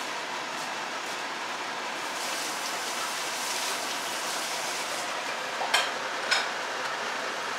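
Pot of chicken curry heating on a lit gas burner, not yet boiling: a steady hiss, with two light clicks a little past the middle.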